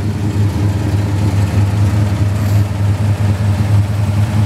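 1964 Dodge's 426 Max Wedge V8 idling steadily, a low, even engine note.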